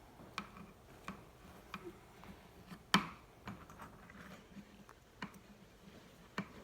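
Scattered small clicks and light taps from the eight stripped Ethernet cable wires being handled and straightened by hand, with one sharper click about three seconds in.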